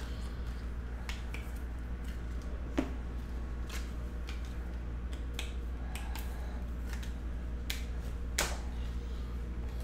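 Light clicks and taps of cards in hard plastic holders being handled on a table, with two sharper clicks, one about three seconds in and one near the end, over a steady low hum.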